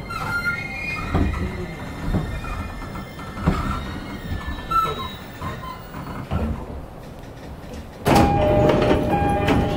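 E231-series electric train slowing to a stop, with short brake squeals and knocks from the running gear. About eight seconds in, the doors open with a rush of air and a two-tone door chime repeating.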